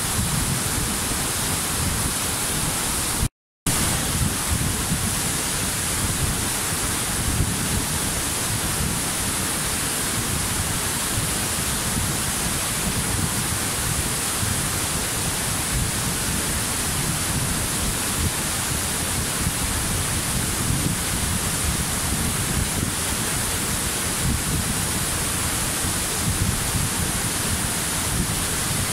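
Waterfall rushing steadily, a dense even roar of falling water, cut by a sudden moment of total silence about three seconds in.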